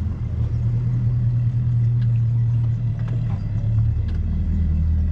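Bass boat's outboard motor idling, a steady low drone while the boat moves slowly.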